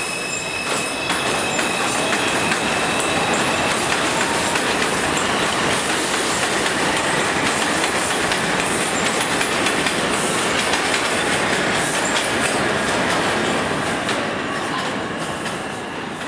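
New York City subway train of R142 cars running past on an elevated track: a loud, steady rumble and rattle of wheels over the rails, with clicks from the rail joints. A faint wheel squeal fades out in the first few seconds, and the noise eases off near the end.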